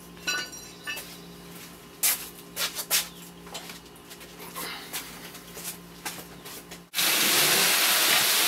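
Knocks, scrapes and rubbing of a metal engine being handled and lifted off a wooden workbench, over a steady hum. About seven seconds in, a loud steady hiss starts suddenly.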